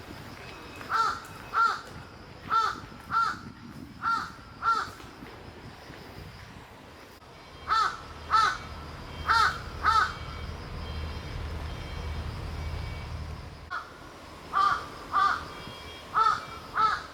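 A bird giving short pitched calls in pairs, seven pairs at uneven gaps. A low rumble runs under the calls through the middle.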